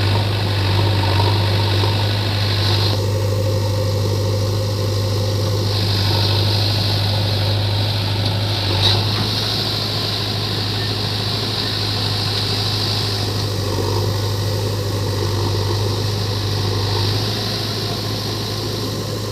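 Heavy diesel machinery engine running steadily with a low, even hum, with a single short knock about nine seconds in.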